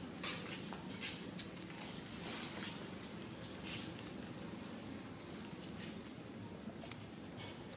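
Steady low outdoor background noise with scattered light rustles and taps, and two brief high squeaks, one about two and a half seconds in and a louder, rising one near four seconds in.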